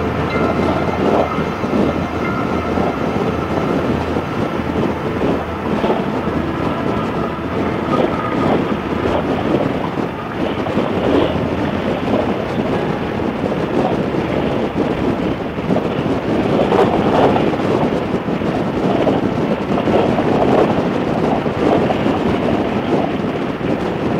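Wind buffeting the microphone of a Harley-Davidson V-twin motorcycle at road speed, with the engine running steadily underneath.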